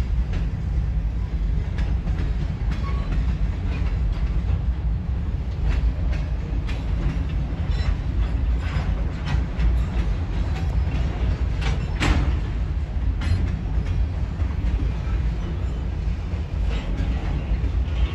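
Freight train of open-top gondola cars rolling past: a steady low rumble of wheels on rail, with irregular clicks and clanks as wheels cross rail joints, the loudest clank about twelve seconds in.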